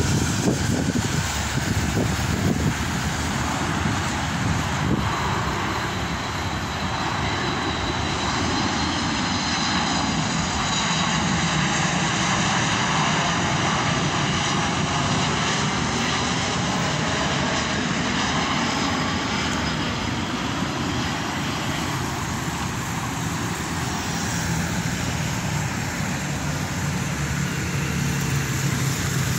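Boeing 737 MAX 8 jetliner with CFM LEAP-1B turbofans flying low overhead on landing approach. Its engines make a steady rush of jet noise, with slowly sweeping tones in the middle as it passes over.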